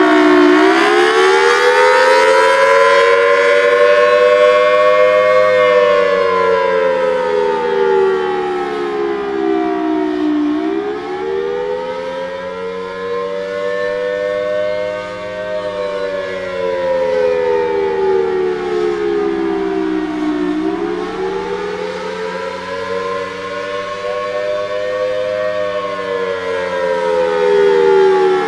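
Federal Signal Thunderbolt outdoor warning siren sounding a slow wail: its pitch climbs for about five seconds, then falls for about five seconds, round and round. The loudness swells and sags a little as it goes.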